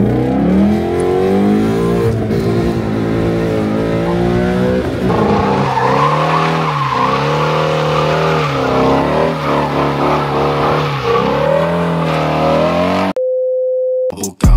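Car engine revving hard, its pitch climbing and dropping again and again, with tyres squealing as the car slides. Near the end it cuts to a single steady beep lasting about a second.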